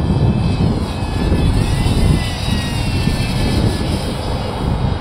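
3D-printed RC model Ligeti Stratos in flight: a faint motor-and-propeller whine that glides up and down in pitch as the plane passes overhead, over a heavy low rumble.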